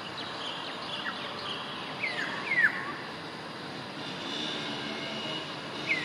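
Bird calls: several short whistled notes that slide sharply downward, the loudest pair a little past two seconds in, over a steady rushing background noise.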